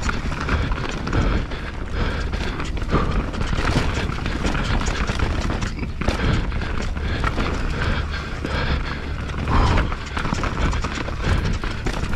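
Full-suspension YT Jeffsy mountain bike descending a rough trail at speed, ridden on a punctured tyre: continuous rattling and clattering of the bike over roots and rocks, with tyre noise on dirt and wind rumbling on the camera microphone.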